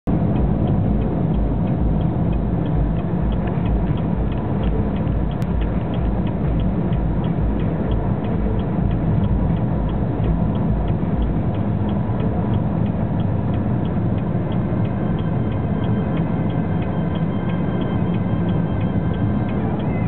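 Road and wind noise inside a car driving through a snowstorm on the highway: a steady rumble with a low throbbing that fades about halfway through, and a fast, even ticking throughout.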